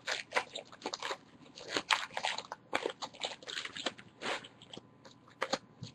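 Baseball trading cards being flipped through by hand: an irregular run of short clicks and soft snaps as each card slides off the stack.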